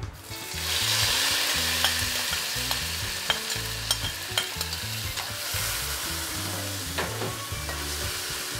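Chopped onion, tomato and green seasoning dropped into hot oil in a metal pot, sizzling as they hit, with the sizzle starting about half a second in. A metal spoon clicks and scrapes against the pot as the vegetables are stirred.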